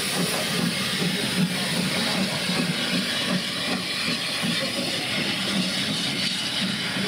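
Small 0-4-0 saddle tank steam locomotive moving slowly with its train: a steady hiss of steam over a soft, regular low beat.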